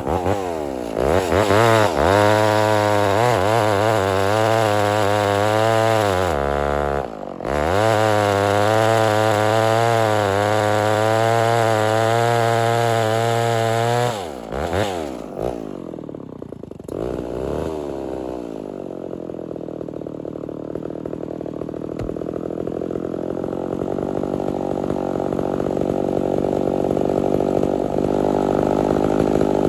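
Homelite Super XL-923 82cc two-stroke chainsaw running hard at high revs, its pitch wavering. It eases off briefly about seven seconds in, then drops back about halfway through to a steadier, lower run that slowly gets louder.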